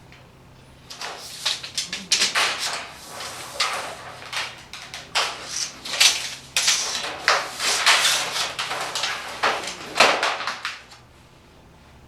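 A run of quick, irregular scraping and rubbing strokes on sheet metal, from a sheet being marked out for cutting. The strokes start about a second in and stop about a second before the end.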